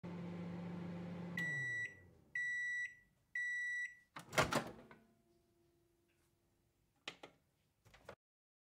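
Microwave oven running with a steady hum that winds down as the timer ends, then three beeps a second apart signalling it has finished. A louder clunk follows as the door is opened, then two short faint clicks.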